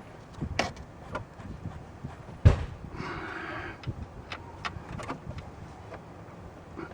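Scattered metal clicks and knocks of hand tools and parts being handled on a car, with one sharp loud knock about two and a half seconds in, followed by a brief rustle.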